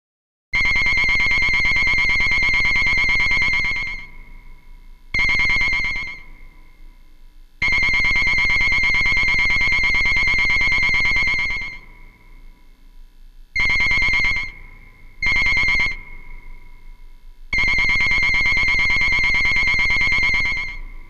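Analog synthesizer recreation of King Ghidorah's Shōwa-era cry: a high, fast-pulsing trilled electronic tone. It sounds six times, three long calls of about four seconds and three short ones of about a second.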